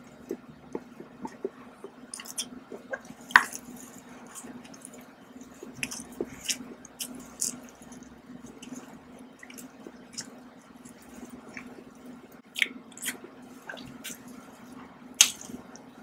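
Close-miked chewing and wet mouth sounds of a person eating a small round snack cake, with scattered sharp clicks and smacks, the loudest about three seconds in and near the end, over a faint steady hum.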